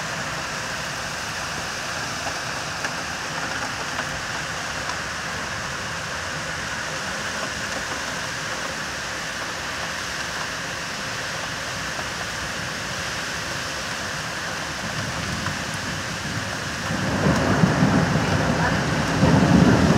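Heavy downpour: steady hiss of hard rain falling on roofs and pavement. About seventeen seconds in, a louder low rumble sets in over the hiss.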